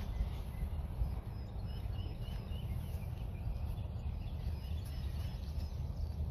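Wind noise on the microphone, a low rumble that rises and falls, with birds chirping faintly in the background in short repeated calls.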